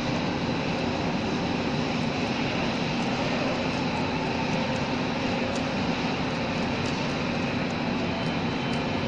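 Steady drone of background machinery with a low hum and a thin high whine, unchanging in level; a few faint metallic ticks from a screwdriver tightening the screws of a grease pump's air-motor housing.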